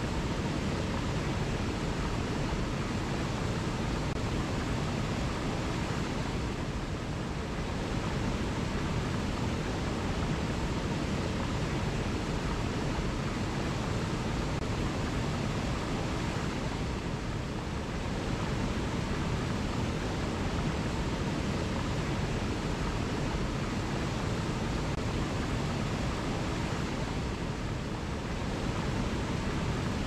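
Small forest waterfall cascading over rocks into a pool: a steady, full rush of falling and churning water, easing very slightly about every ten seconds.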